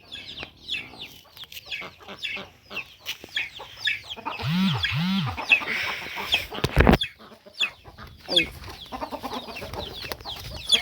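Chickens clucking, with a rapid run of short high peeping calls and a pair of longer arched calls about four and a half seconds in. A single loud thump sounds near the seven-second mark.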